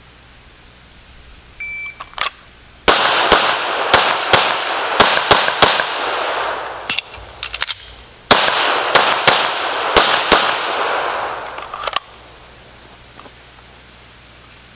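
A shot timer beeps briefly. Then a 9mm Sig Sauer P320 pistol fires a rapid string of shots, each echoing, and a few softer clicks come in a pause of about two seconds during a magazine reload. A second rapid string of shots follows.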